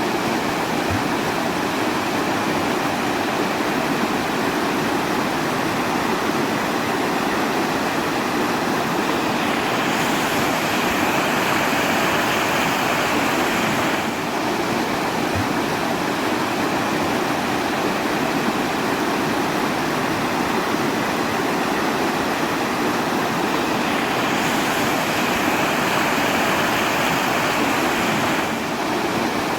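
Steady rushing water, a continuous even noise with no single events in it. The hiss brightens and dulls slightly a few times.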